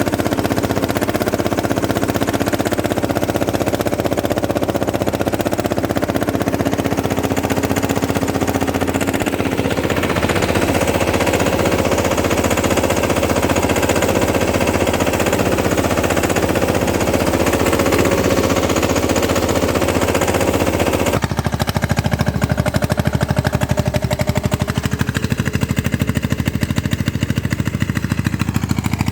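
Three-wheel sanedo tractor's engine running with a fast, even pulsing beat. The tone shifts about ten seconds in and changes abruptly about twenty-one seconds in.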